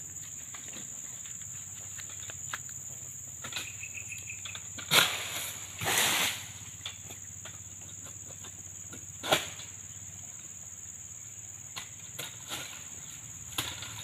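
Steady high-pitched insect drone, with a loud sharp crack about five seconds in, a brief rushing swish a second later, and another sharp crack a few seconds after that.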